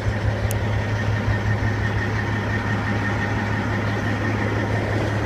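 Cat C15 diesel engine of a Peterbilt 379 idling steadily, a constant low hum, with a brief click about half a second in.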